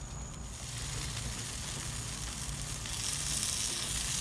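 Marinated chicken tikka sizzling on a hot barbecue grill grate: a steady hiss that grows louder about half a second in.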